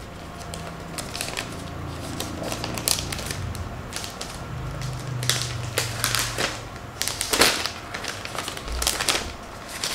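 Protective plastic wrap crinkling and crackling as it is peeled off a new laptop, in an irregular run of sharp crackles.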